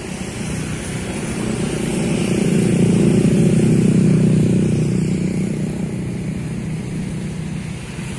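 A motor vehicle engine running with a steady hum that grows louder over the first few seconds, peaks about three to four seconds in, then fades back.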